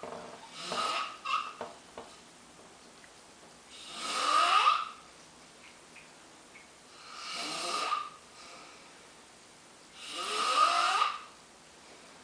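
Steady, rhythmic snoring: four rasping snores about three seconds apart, each about a second long and rising in pitch, with a few short snuffling clicks near the start.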